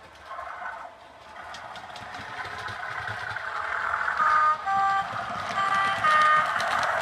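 Hornby Twin Track Sound model Class 37 diesel locomotive's onboard sound chip playing diesel engine sound that grows louder as the loco runs. The chip also sounds its two-tone horn twice.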